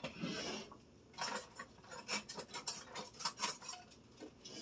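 A utensil scraping and knocking in a mixing bowl as meatloaf mixture is mashed down flat: a soft scrape, then about a second in a quick, irregular run of light clicks and knocks against the bowl.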